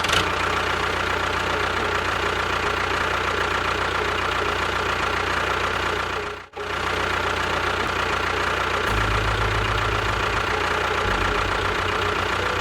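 A small motor runs steadily with a dense buzzing hum. It cuts out for a moment about halfway through, then runs on with a deeper hum from about two-thirds of the way in.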